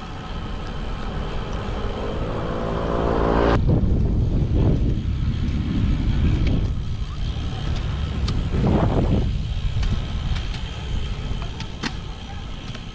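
Wind rumbling on the microphone of a moving bicycle, with motor traffic passing close by. A vehicle engine's hum rises in pitch and is cut off sharply about three and a half seconds in. Then comes louder rumbling that swells each time a vehicle goes past, three times.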